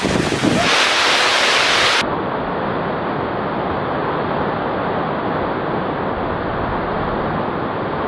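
Waterfall's steady rush of water pouring down a rock face. About two seconds in it changes abruptly to a duller, more muffled rush with the high end cut off.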